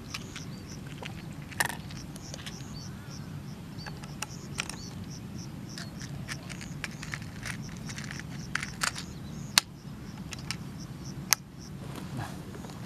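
Rhythmic high-pitched chirping, repeated about two or three times a second, over a low steady hum, with a few sharp clicks, two of them loud in the second half.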